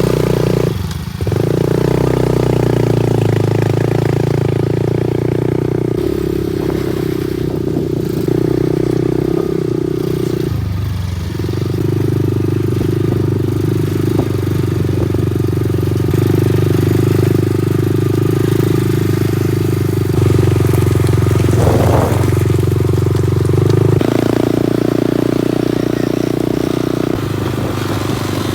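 ATV engine running while riding, holding steady speeds that step up or down every few seconds. There are brief drops in engine note about a second in and again around ten seconds.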